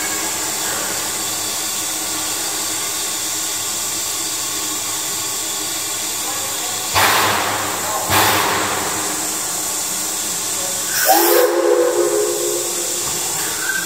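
Steam locomotive standing under steam with a steady hiss of escaping steam. Two sudden louder surges of hiss come about seven and eight seconds in, and a brief louder tonal sound comes about eleven seconds in.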